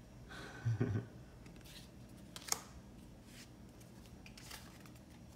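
Tarot cards being handled: a card slid and set down on the pile with soft swishes of card stock and a sharp tap about two and a half seconds in. A brief low thump comes just under a second in.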